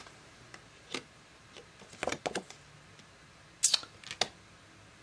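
Tarot cards being handled and shuffled to draw a clarity card: a few short, sharp card snaps and clicks, with a cluster about two seconds in and more around four seconds.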